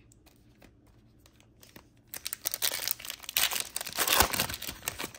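Trading cards being slid through a hand-held stack: a run of dry scraping and rustling strokes that starts about two seconds in.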